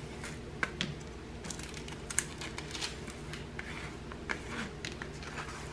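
Plastic scraper tool rubbing over a diamond painting canvas and its plastic cover film, with faint scraping, crinkling of the film and scattered small clicks and taps.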